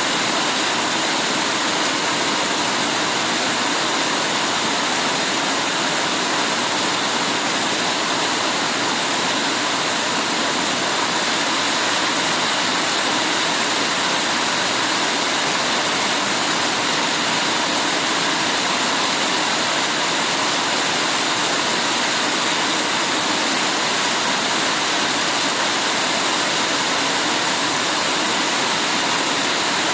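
Heavy rain falling as a steady, even downpour hiss with no breaks.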